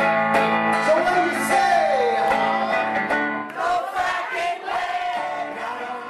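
Closing bars of a guitar-backed song. The bass drops out about three and a half seconds in, and the music fades toward the end.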